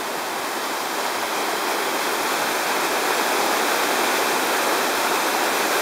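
Steady rush of falling water from a mountain canyon stream and waterfall: an even, unbroken hiss with no splashes.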